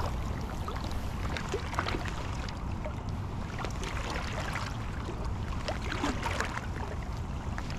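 Steady rush of creek water, heaviest in the low end, with scattered faint clicks and ticks.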